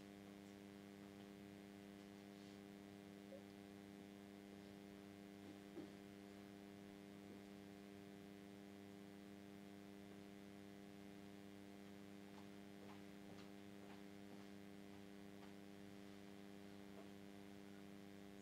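Near silence: a faint steady electrical hum, with a couple of faint ticks.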